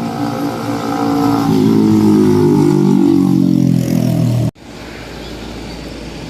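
A motor vehicle passing close by, its engine note falling in pitch as it goes past. The sound cuts off suddenly about four and a half seconds in, leaving a low, steady traffic hum.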